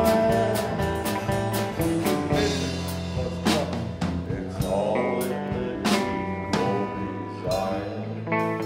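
Live band with acoustic and electric guitars and a drum kit playing the close of a song. Held chords ring under spaced cymbal crashes, about once a second in the second half, as the song winds down.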